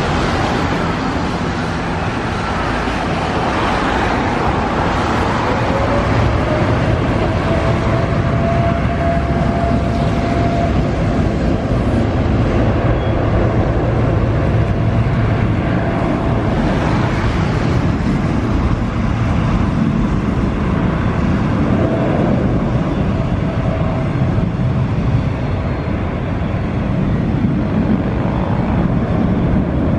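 Boeing 787's jet engines running as it taxis: a steady rumble and rush with a thin whine that rises in pitch a few seconds in, then holds steady.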